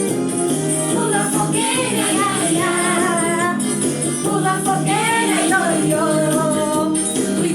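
Music: a song with a sung melody over a steady held accompaniment, the singing coming in about a second in.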